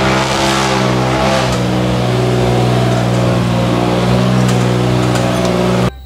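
Off-road Jeep's engine running at steady, high revs under load as it climbs a steep slope. It cuts off abruptly near the end.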